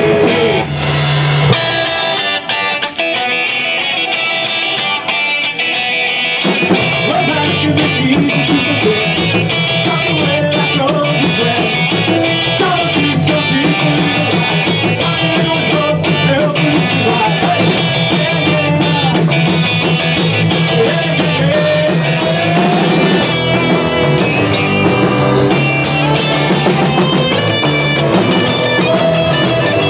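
Live rock band playing: electric guitars and a drum kit, with a singer on the microphone. The bottom end is thin for the first few seconds, and the full band comes in about six seconds in.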